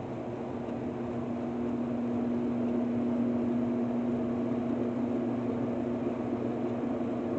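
Steady mechanical hum with one constant low tone and a faint hiss, unchanging throughout.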